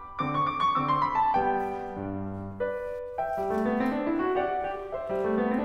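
Background piano music, a melody of clear sustained notes with rising runs of notes in the second half.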